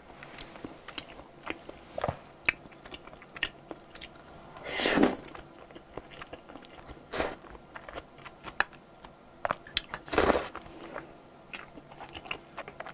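Close-miked eating of wide ribbon pasta in cream sauce: wet chewing with many small mouth clicks and smacks, and louder slurps of noodles about five and ten seconds in.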